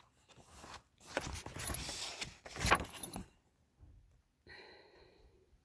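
Handling noise: rustling with light clicks and clatter for about two seconds, then a faint brief hum near the end.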